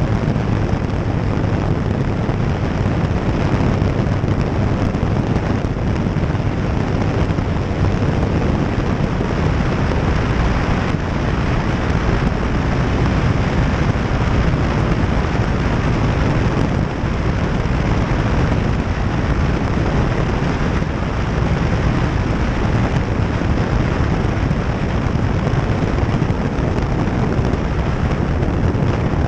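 Loud, steady wind rush buffeting the microphone of a camera mounted outside a One Design aerobatic plane, with the plane's engine and propeller running beneath it during the approach to land in a strong crosswind.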